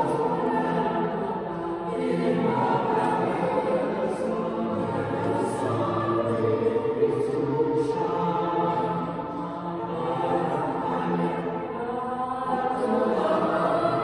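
Boys' choir singing, with long held notes.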